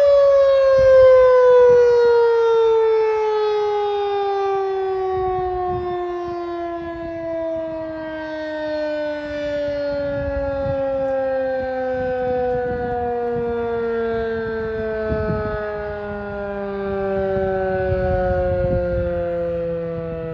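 Federal Signal 2001-130 electromechanical siren winding down after its Alert signal, its single tone falling slowly and steadily in pitch as the rotor coasts to a stop.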